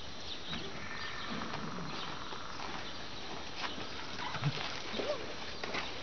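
Appaloosa horse's hooves stepping on dirt and gravel as it is led at a walk, a scatter of soft, irregular footfalls.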